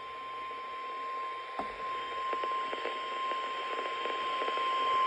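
NOAA Weather Radio 1050 Hz warning alarm tone sent during the weekly test, one steady high tone heard through a weather radio receiver over static hiss. A click about a second and a half in, after which the tone is louder.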